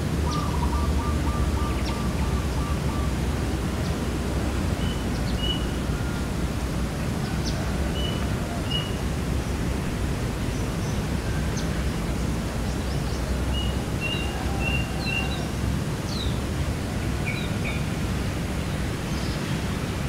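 Steady outdoor background hiss with a low rumble, and scattered bird calls over it: a quick run of about eight short notes in the first few seconds, then short paired high chirps a few times later on.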